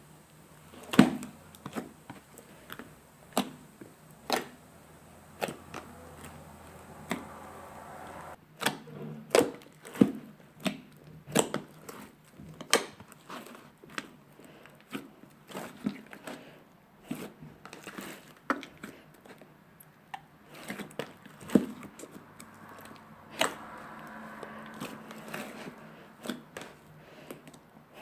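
Slime being kneaded and squished by hand, giving irregular sharp pops and clicks as air pockets burst, one or two a second.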